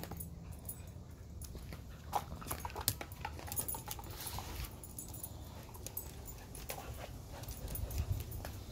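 A husky playing on patio tiles: scattered light clicks and taps all through, with faint dog sounds.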